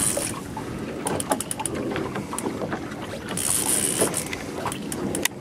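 Shimano Calcutta reel's drag buzzing in two spells, at the start and again a few seconds in, as a striped bass pulls line off, with quick runs of clicks between. Wind on the microphone and a boat's steady running noise lie underneath.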